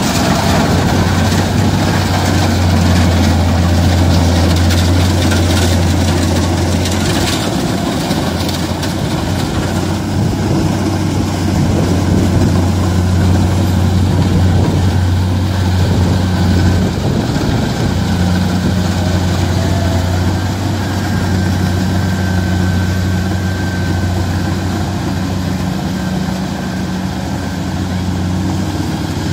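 Kubota rice combine harvester's diesel engine running steadily with a low drone, its tone shifting slightly a little past halfway through.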